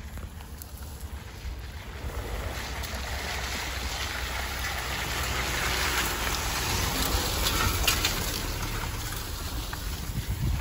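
Subaru Forester driving slowly past on a muddy trail: tyres churning through wet mud and dry grass brushing along the body over a low vehicle rumble. It grows louder as it draws close and passes, then fades slightly as it pulls away.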